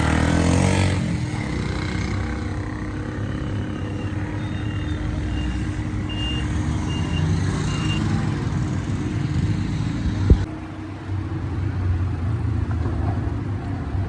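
Street traffic: vehicle engines running with a steady low rumble, and a string of short high beeps about a third of the way in, like a vehicle's reversing alarm. A sharp click near the end.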